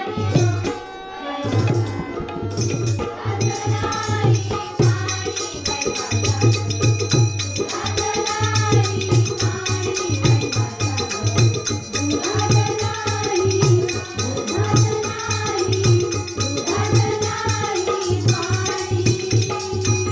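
Marathi devotional bhajan music: melodic phrases over a steady hand-drum rhythm and jingling percussion. The music stops just at the end.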